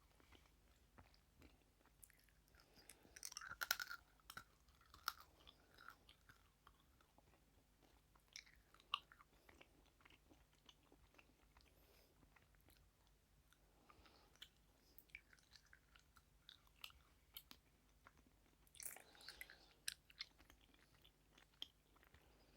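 Close-miked chewing of sweets, with small wet mouth clicks throughout and louder, crunchier bites about three seconds in and again near the end.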